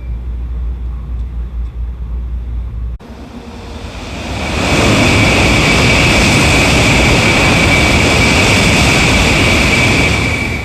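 N700-series Shinkansen train running noise. A low steady rumble comes first. About three seconds in, after a cut, a loud rushing hiss with a steady high whine builds over a couple of seconds, holds, and eases off near the end.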